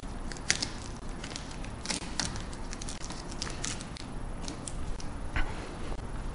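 Lint-free paper towel rubbing and crinkling as it wipes the edge of the windshield opening, with scattered small clicks and scuffs.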